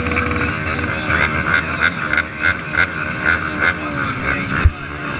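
Several race ATV engines running in the staging line, their pitch wandering up and down as throttles are blipped. A single sharp low thump comes near the end.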